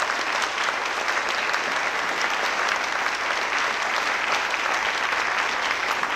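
A congregation applauding steadily: many people clapping at once.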